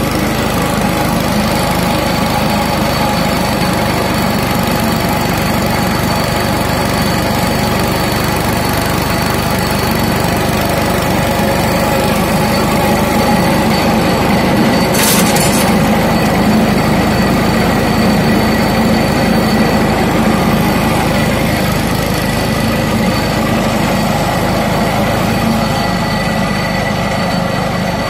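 Groundnut picking machine running, driven through a PTO shaft: a loud, steady mechanical running noise with a steady hum, and a short higher-pitched rattle about halfway through.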